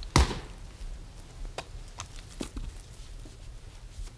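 A single sharp, loud axe blow into a log on a chopping block just after the start, followed by a few lighter knocks.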